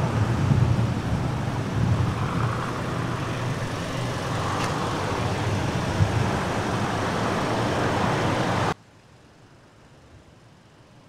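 Steady rumble of road traffic, cut off suddenly about nine seconds in; only faint background noise remains.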